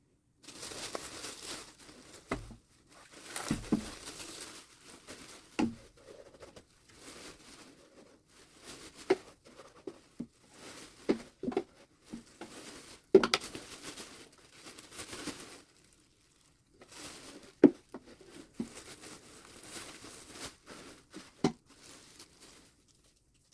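Aspen bedding being scooped out of a mouse tank, rustling and crinkling in uneven spells, with scattered sharp knocks.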